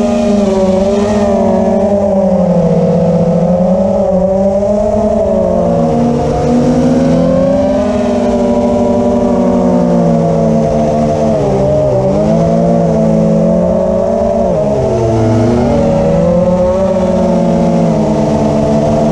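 Electric motors and three-blade propellers of a 5-inch FPV quadcopter (EMAX ECO II 2306 1900KV motors on 4S, T-motor T5143S props) whining as it flies, heard from its onboard camera. The pitch rises and falls with the throttle and dips sharply twice in the second half.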